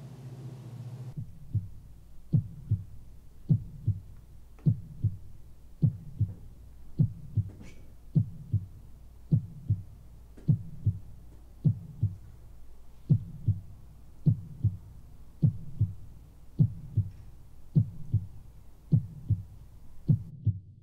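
Heartbeat sound effect: pairs of low thumps, a lub-dub about every 1.2 seconds, over a steady low hum. It starts about a second in and cuts off just before the end.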